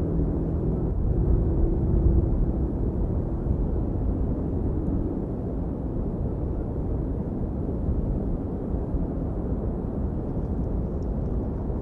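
Steady low rumble of wind buffeting the nest-cam microphone, with a faint engine drone fading out about five seconds in.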